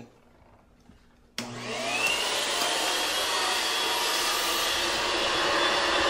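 Atrix Omega HEPA pest vacuum switched on about a second and a half in, its motor whine rising quickly as it spins up, then running steadily.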